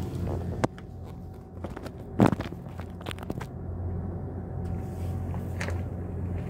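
Scattered crunches and clicks on gravel, like shifting weight and handling near the ground, the loudest about two seconds in, over a steady low hum.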